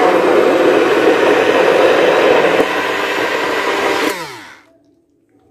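Electric blender churning cultured cream (malai set with curd) to separate out butter, running steadily at high speed, then switched off about four seconds in and winding down with a falling whine.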